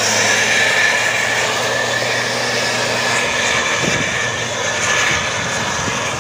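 Tour bus engine running hard as the bus climbs past, with a steady high whine over the engine noise. The low engine hum drops away about three seconds in.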